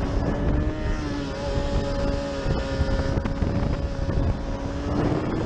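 Sport bike engine running at steady revs, heard from the rider's helmet camera, with wind buffeting the microphone.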